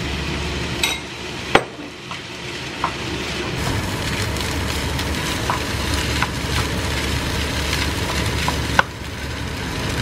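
Fried rice sizzling in a frying pan as it is stirred and scraped with a wooden spatula, with a few sharp clicks, the loudest about a second and a half in.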